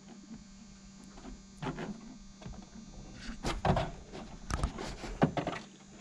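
Scattered taps, knocks and rubs of fingers working a Taylorcraft wire rib clip into its hole in the fabric-covered wing rib, the taut fabric covering giving each press a light knock; a faint steady hum sits underneath.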